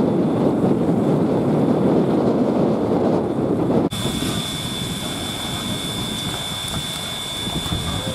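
Stationary JA-class steam locomotive simmering: a steady rush of steam and machinery noise that drops suddenly about four seconds in, then a quieter hiss with a steady high whine.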